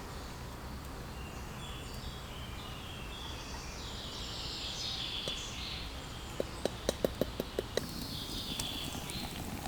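Wild birds chirping and singing over steady outdoor background noise. About six and a half seconds in comes a quick run of about eight short, sharp clicks, roughly six a second.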